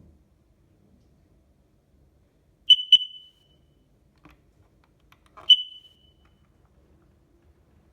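Home smoke alarm pressed for a test, giving only short, sharp high-pitched chirps: two in quick succession, then a single one a few seconds later, instead of a continuous alarm. He judges the unit faulty and in need of replacing.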